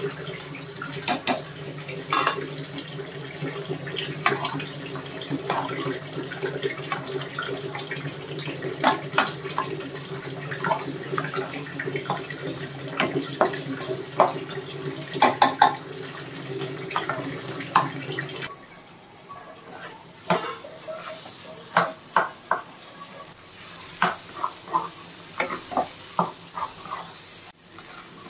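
Steel ladle clinking and scraping against a metal pan while thick taro-leaf mash with fried hilsa pieces is stirred, in many short knocks. A steady low hum runs underneath and cuts off suddenly about two-thirds of the way through.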